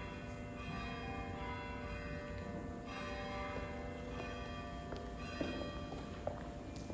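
Bells ringing, several pitches at once, with fresh strikes every second or so, each one ringing on and fading. A few faint knocks come near the end.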